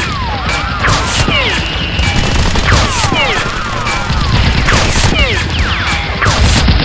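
Rapid, continuous gunfire sound effects, with many whistling glides that sweep down or arch, over background music.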